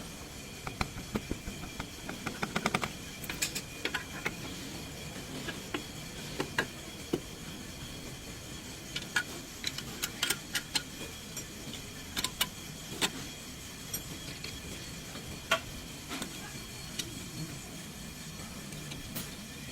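Irregular sharp metallic clicks and clinks, like tools and metal parts being handled, over a steady background hum with a faint high whine.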